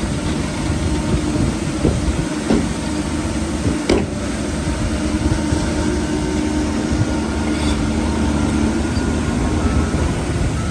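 Shantui crawler bulldozer's diesel engine running steadily, with its steel tracks clanking and a few sharp metallic knocks.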